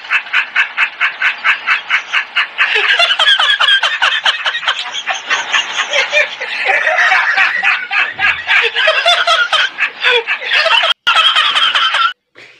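High-pitched laughter in rapid pulses, about five a second at first, then running together into a continuous fit, broken by a short dropout near 11 seconds.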